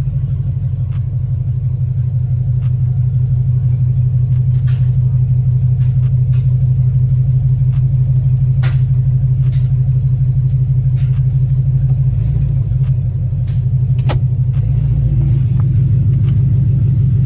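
Car engine running with a loud, steady, pulsing low exhaust rumble, with a few light clicks over it.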